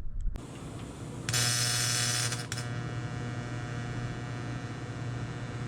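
Electric welder humming steadily, with a tack weld struck about a second in: the arc hisses and crackles for just over a second, then stops while the welder's hum carries on.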